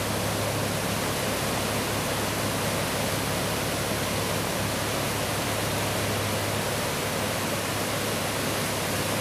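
Sabinal River floodwater rushing over a flooded low-water road crossing: a steady, unbroken wash of water noise.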